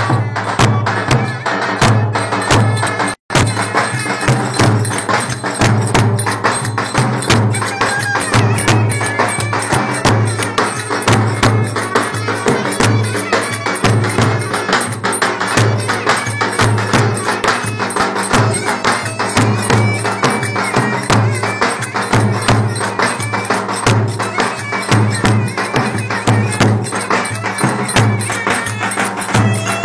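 Live Turkish wedding dance music led by two clarinets over a steady, pulsing drum beat. The sound cuts out for an instant about three seconds in.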